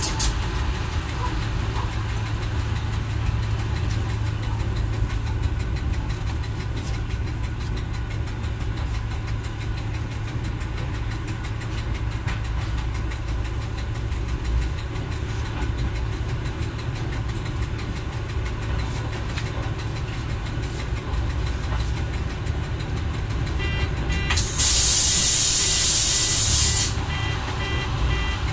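Y1 diesel railcar running slowly, heard from the driver's cab as a steady low engine and running rumble. Near the end a loud hiss lasts about two seconds.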